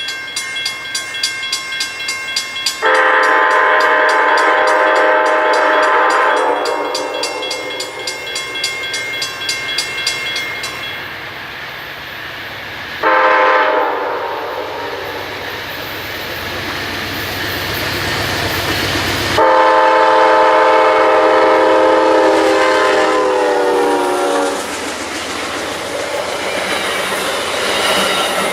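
Railroad grade-crossing bell ringing in rapid strokes, stopping about eleven seconds in, while an approaching locomotive sounds its multi-note chime horn. The horn gives a long blast about three seconds in, a short one near the middle and another long one about twenty seconds in, the pattern of a crossing signal. The train's wheels then run over the rails.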